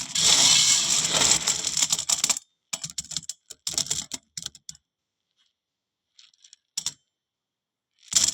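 Dried small harad (chebulic myrobalan) fruits being handled: a dense clicking and rattling for about two and a half seconds, then a few shorter bursts, then near silence broken by two single clicks near the end.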